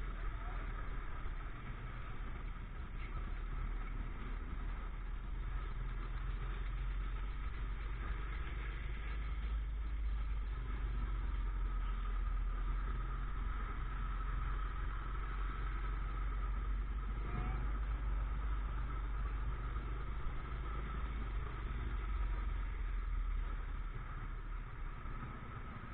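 Motorcycle engine running steadily while riding through town traffic, over a deep, steady rumble of road noise.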